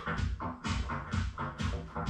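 Electronic background music with a steady, regular beat.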